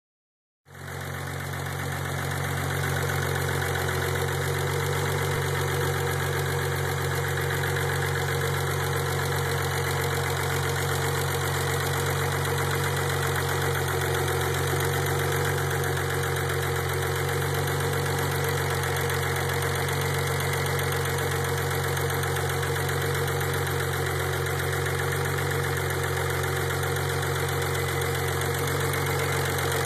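Warm engine idling steadily after five to ten minutes of running, run to listen for an engine noise.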